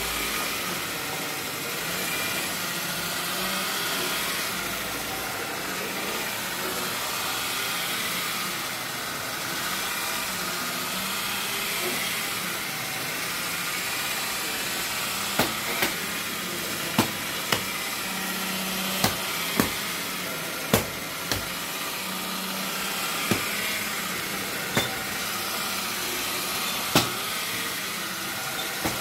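Turntable stretch-wrap machine running: a steady motor hum with a low tone that swells and fades every few seconds as the turntable turns, and the hiss of plastic film winding onto the bundle. From about halfway, about a dozen sharp clicks come at irregular intervals.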